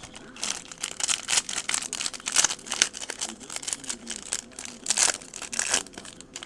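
Trading-card pack wrapper being torn open and crinkled by hand: a dense, continuous crackle with louder bursts about two and a half and five seconds in.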